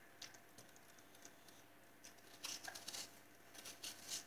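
Faint crisp scraping of a peeled cucumber being twisted against the blade of a handheld vegetable sharpener, shaving off thin pieces. The scratchy cutting sounds come in a short run between two and three seconds in and again near the end.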